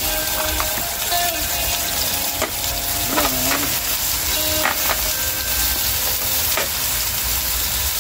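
Chicken pieces frying in hot oil in a cast-iron camp Dutch oven: a steady sizzle, with a few light clicks as the meat is moved.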